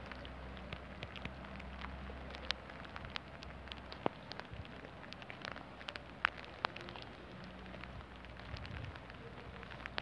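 Rain falling steadily, with scattered individual drops tapping sharply on a hard surface.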